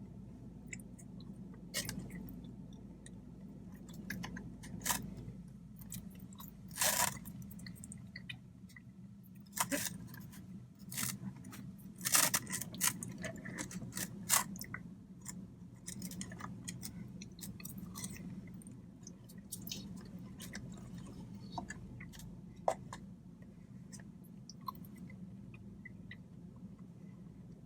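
A person chewing and crunching fried fast food (chicken fingers and fries) close to the microphone, with irregular crisp crunches and small mouth clicks over a steady low hum.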